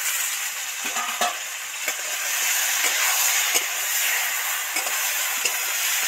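Potatoes, aubergine and onion sizzling in oil in a wok while a spatula stirs them, with occasional short scrapes and clicks of the spatula against the pan.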